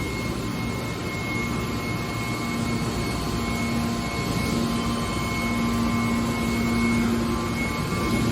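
Hydraulic metal baler running: a steady mechanical drone from its hydraulic pump and motor, with a low hum and a higher whine held throughout, the low hum growing stronger about halfway through.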